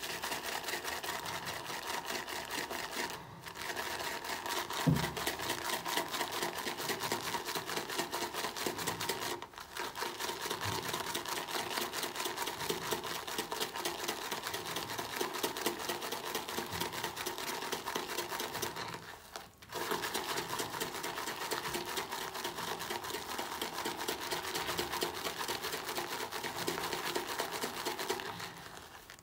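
Shaving brush whipping shaving cream into lather in a ceramic bowl: fast, even swishing and squelching strokes of the bristles against the bowl, stopping briefly three times, with one louder knock about five seconds in.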